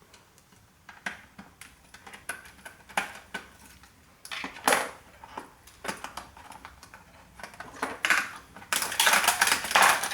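Small metal parts of a floppy disk drive clicking and clinking as a screwdriver undoes the screws holding down its ring of motor coils, in scattered sharp ticks. Near the end comes a louder stretch of rapid rattling and scraping as the parts are worked loose.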